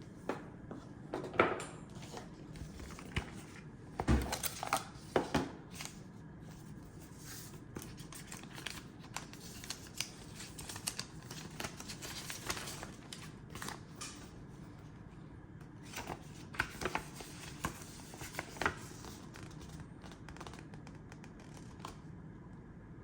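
Cardboard and paper packaging being handled and opened: crinkling, tearing and scraping with scattered clicks, and a heavy thump about four seconds in.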